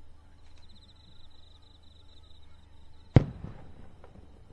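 A single aerial firework going off about three seconds in: one sharp boom with a short echo dying away. Two much fainter distant pops come before and after it.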